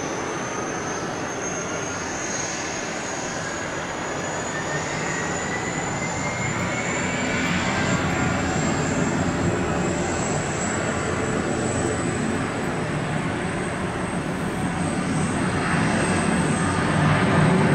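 Boeing 757-300's twin turbofans running up for the takeoff roll: a steady jet rumble with a high whine that climbs slowly in pitch, growing louder toward the end.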